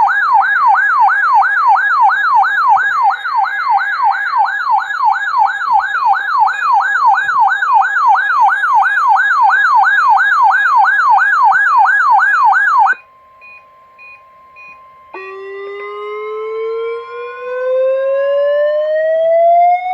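Electronic siren wailing rapidly up and down, about two to three sweeps a second, that cuts off suddenly about 13 seconds in. After a short lull with a faint steady tone, a siren winds up, rising steadily in pitch.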